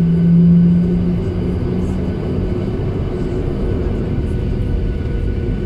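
Boeing 737 airliner engines and airflow heard from inside the passenger cabin while the aircraft rolls on the runway: a steady rumble with a constant hum, and a lower hum that fades away about a second in.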